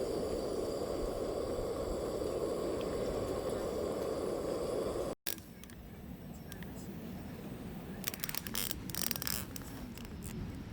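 A steady rushing noise that cuts off abruptly about five seconds in. Quieter ambience follows, with a short run of scraping and clicking handling sounds near the end.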